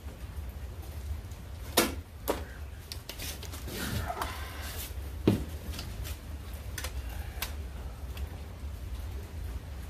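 Handling noise from work on a car door: a few sharp clicks and knocks, the loudest about halfway through, and a brief scraping rustle just before it, over a steady low hum.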